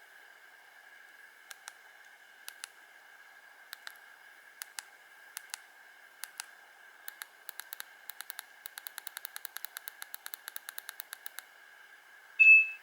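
Keys of a Nokia 1800 mobile phone clicking over faint hiss, first in pairs about once a second, then in a fast run of about five clicks a second. One short, loud, high beep near the end.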